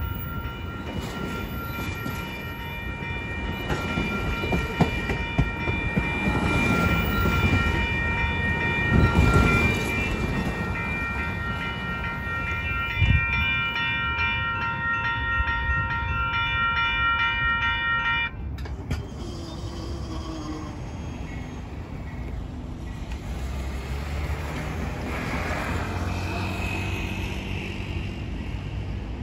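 A bilevel passenger train passes a level crossing, its wheels clattering over the rails with a few heavy knocks, while the crossing's warning bell rings steadily. About two-thirds through, the bell and clatter cut off suddenly, leaving the low rumble of Amtrak P42DC diesel locomotives approaching at a distance.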